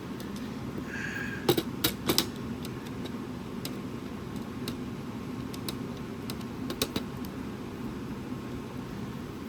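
A few sharp clicks and taps from handling the parts of a disassembled speaker: a quick cluster of about four around one and a half to two seconds in, and two more near seven seconds, over a steady low hum.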